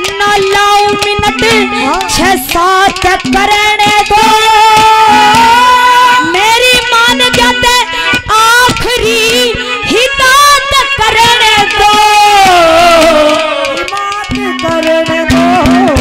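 Amplified woman's voice singing a Haryanvi ragni, with long, wavering held notes. Behind it are hand drums played on clay pots and a steady held low note. The voice drops back near the end, leaving the accompaniment.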